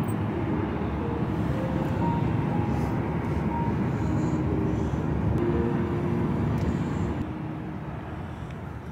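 Steady road and engine noise inside the cabin of a moving car, a dense low rumble that eases slightly near the end.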